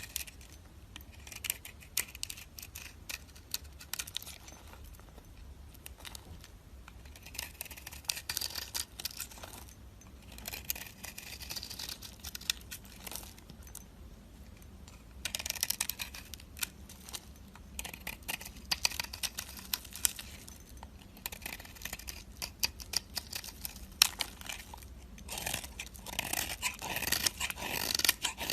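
Dry soap being cut with a knife: repeated crunchy, crackling strokes in spells of a second or two, with short pauses between.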